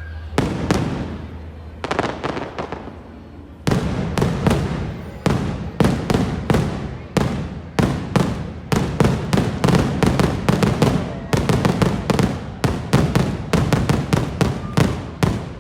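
Fireworks shells bursting overhead: a few scattered bangs, then from about four seconds in a dense barrage of rapid bursts, several a second, that stops just before the end.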